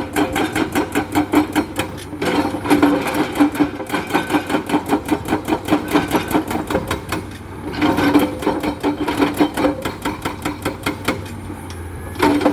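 Excavator-mounted hydraulic breaker hammering limestone in a fast, even train of blows, about nine a second, over the machine's steady engine hum. The hammering stops briefly a few times, longest near the end.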